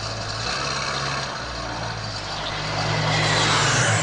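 Propeller drone of a low-flying twin-engine turboprop aircraft approaching, a steady hum growing louder over the last second or so.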